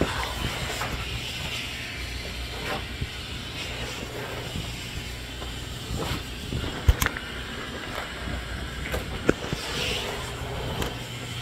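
A flat microfibre mop is pushed over a tile floor against a steady low hum, with a few sharp knocks and clicks, the loudest about seven and nine seconds in.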